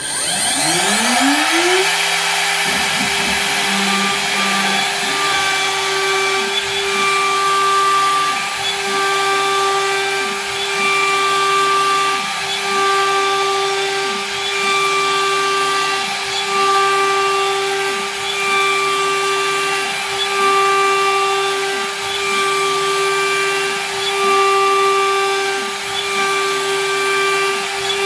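DIY CNC router spindle spinning up to 24,000 rpm, a rising whine in the first two seconds that settles into a steady high hum. Then a 10 mm three-flute roughing end mill cuts the full 18 mm depth into birch plywood, the noise swelling and easing in a steady rhythm about every second and a half as the machine sweeps back and forth across the pocket.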